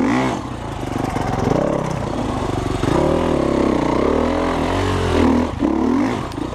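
300cc two-stroke enduro motorcycle on the throttle over rough trail, its engine revving up and falling back again and again as the rider works the throttle, with a brief drop-off about five and a half seconds in.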